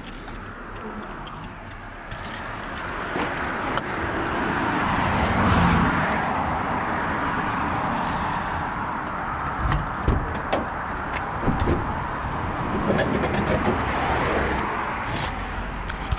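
Road vehicle noise: a steady rush that swells about five to six seconds in, with a run of sharp clicks and rattles in the second half.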